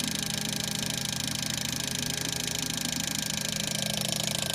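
Fuel injector test bench pulsing jet ski fuel injectors during a flow test: a rapid, even buzz of injector clicks over a steady hum, growing a little louder near the end.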